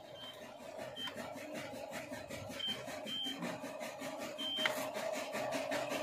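RC excavator's small electric motors and gears whining steadily with a fast rhythmic chatter as the arm and bucket work, with a few short high beeps.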